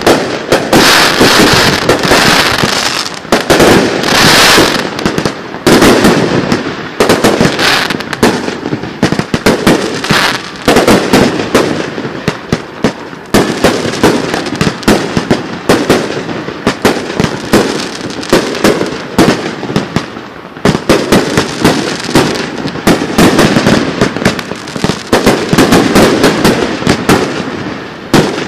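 Professional 1.3G display fireworks: aerial shells launching and bursting in rapid, overlapping succession. The result is a loud, dense barrage of bangs with no real pause.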